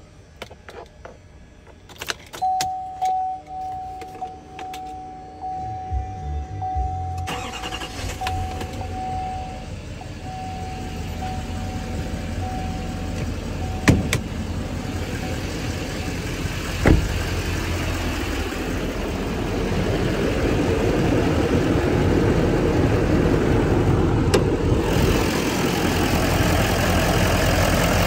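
A Chevrolet pickup truck started with the key: a few clicks and a steady warning tone, then the engine catches about seven seconds in and runs at idle. A sharp click and a knock come partway through, and the idle grows louder toward the end, heard close up from the open engine bay.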